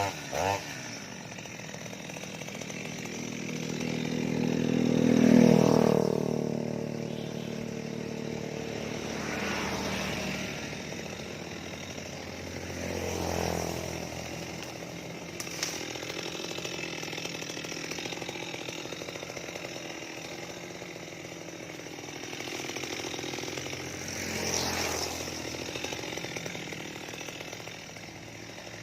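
Stihl MS 230 two-stroke chainsaw running, revved up and down several times with lower running between. The loudest rev comes about five seconds in.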